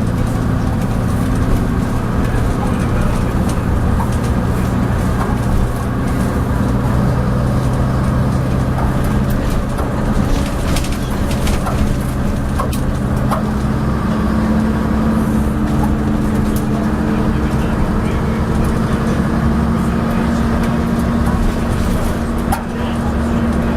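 Leyland Atlantean double-decker bus with ECW body, heard from on board: its diesel engine runs steadily while under way, with clanking and rattling from the bus, most of it a little under halfway through. The engine note moves up about halfway through and keeps rising slowly, as the bus changes speed or gear.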